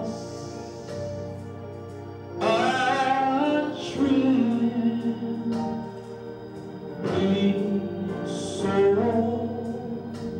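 Male gospel singer singing long, drawn-out phrases with sliding pitch over sustained organ chords. The voice swells louder about two and a half seconds in and again about seven seconds in.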